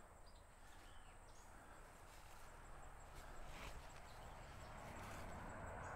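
Faint footsteps and rustling of grass, brush and corn leaves, with a few light clicks, slowly getting louder.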